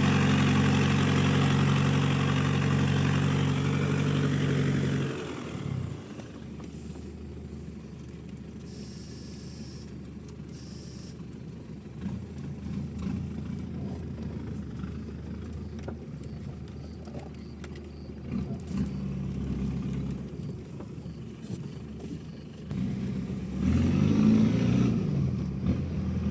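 Ford Ranger's 2.8 Power Stroke diesel engine idling steadily, then stopping abruptly about five seconds in. A quieter low hum with scattered noise follows, and a louder stretch with wavering pitch comes near the end.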